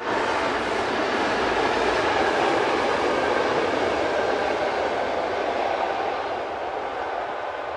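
Locomotive-hauled passenger train rolling across a concrete railway viaduct: a steady rumble of wheels on rail. It is loudest in the first few seconds and slowly fades as the train moves away.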